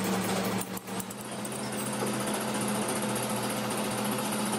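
Metal lathe running with its chuck spinning, a steady machine hum under the hiss and rattle of the tool cutting a steel sleeve. The sound dips briefly under a second in, then carries on steadily.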